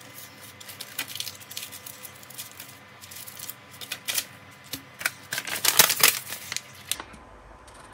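Paper and banknotes being handled: irregular rustling and crinkling of a folded paper sheet and a rubber-banded stack of paper money. The loudest crinkling comes in a dense run about five to six and a half seconds in, then it goes quieter.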